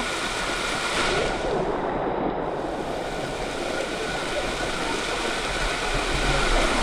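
Waterfall pouring into a swimming hole: a steady, even rush of falling water.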